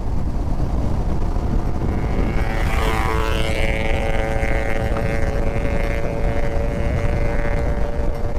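Riding sound from a Yamaha R15 V4 motorcycle: a heavy steady rumble of wind on the microphone with the bike's 155 cc single-cylinder engine running at a steady cruise. From about two seconds in a steady engine drone stands out, with a short rush of hiss near three seconds.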